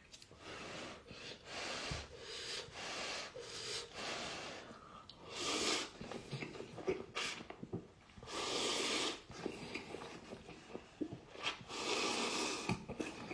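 Person slurping instant cup noodles: repeated airy slurps, three long loud ones in the second half, with chewing and smaller slurps between.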